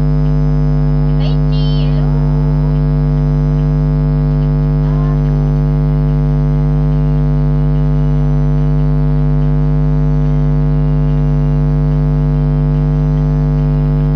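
Loud, steady electrical hum with a stack of even overtones, unchanging throughout. A faint voice briefly shows through about one to two seconds in.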